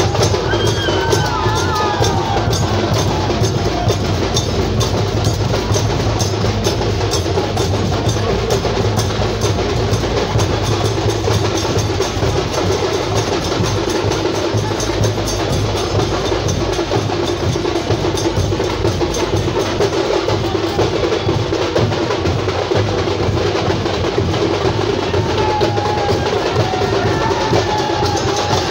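Dhol-tasha drumming: a fast, continuous beat of many strikes with no break.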